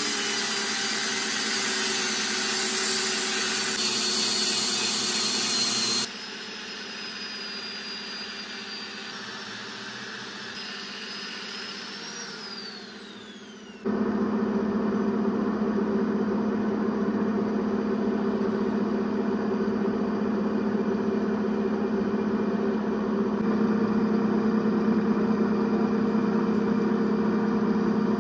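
An angle grinder with a foam polishing pad whines as it buffs a wooden vase turning on a wood lathe. After a few seconds the sound drops quieter, and near the middle a motor winds down with a falling whine. Then the lathe motor runs with a steady low hum while wax is rubbed onto the spinning wood with a cloth.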